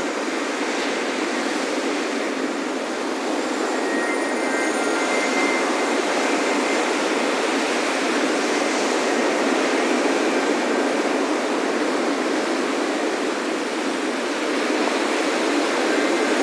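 Ocean surf breaking on a beach: a steady wash of waves that swells and eases slowly. Faint high wind-chime tones ring a few seconds in.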